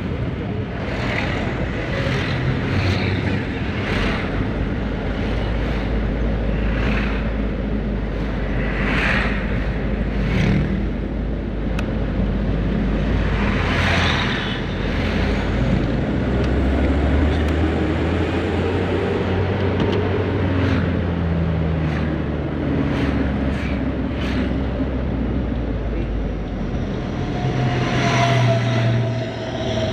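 Isuzu Elf minibus diesel engine running on the road, its engine note rising and falling with speed, with traffic noise around it.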